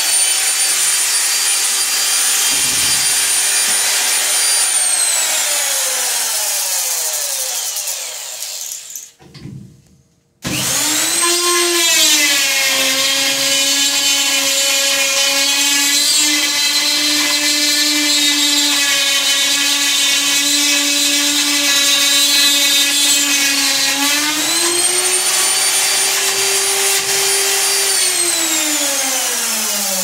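Electric router cutting the lock pocket in an aluminum door stile through a clamped template. The motor whine runs down and stops about nine seconds in, then starts again a second or so later. It holds a steady, slightly lower pitch for about twelve seconds, rises briefly, and runs down again near the end.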